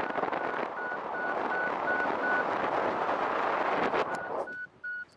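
Paragliding variometer beeping in short, even tones, about three a second, pausing once and coming back slightly higher in pitch: the climb tone that signals rising air in a thermal. Wind rushes on the microphone and drops away near the end.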